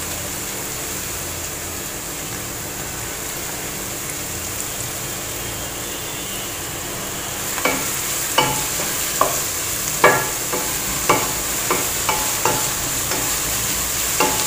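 Sliced onions with crushed ginger, garlic and green chilli sizzling in hot coconut oil in a frying pan, a steady hiss. From about halfway, a wooden spatula stirs them, knocking and scraping against the pan in quick irregular taps.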